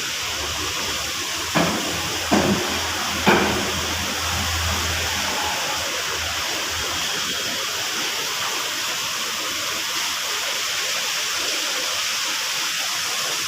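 Heavy rain falling as a steady rush of water. Three short knocks stand out between about one and a half and three and a half seconds in.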